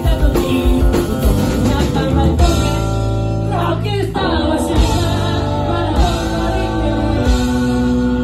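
Live rock band playing: a male lead vocalist singing over electric guitar and drum kit.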